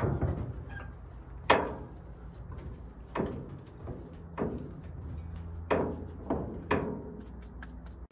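The rusty hood of a 1957 Plymouth being unlatched and lifted: several irregular, sharp metal clunks from the hood and its hinges, the loudest about one and a half seconds in.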